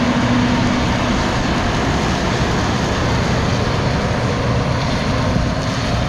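Case IH tractor pulling a grain cart, its engine running steadily as it drives off across the stubble. A steady low hum in the engine noise drops away about a second in.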